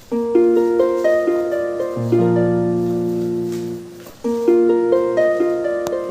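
Background music: a plucked-string tune of quick rising runs of notes over held bass notes, the phrase starting over about every two seconds.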